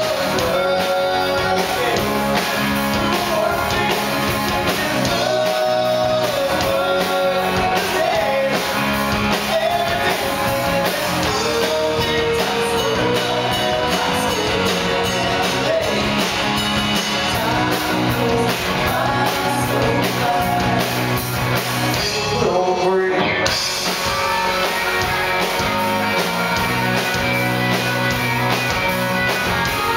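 Live rock band playing: electric guitars, bass and a drum kit with cymbals, under a sung lead vocal that holds long, wavering notes. The music briefly thins out just over two-thirds of the way through, then carries on.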